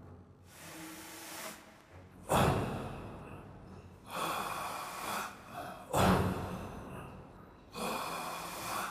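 Heavy breathy exhalations in a steady rhythm, four of them about two seconds apart, each one sudden and then trailing off with reverberation.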